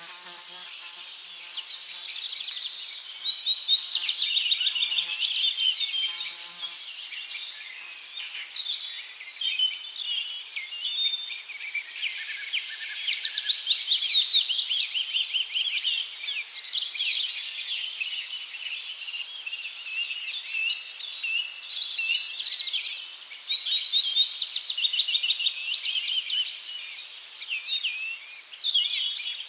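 A chorus of many small birds chirping and twittering together, with rapid overlapping trills that swell and ease in waves.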